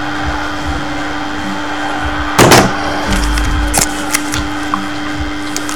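Handling noise from foil trading card packs: a short loud crackle about halfway through, then light clicks and crinkles, over a steady hum and room noise.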